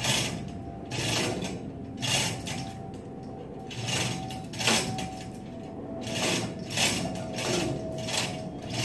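A hand tool worked against the metal of a dump truck's clutch housing in short rasping strokes, about one a second and slightly irregular, with the tool being used during a clutch-lining replacement.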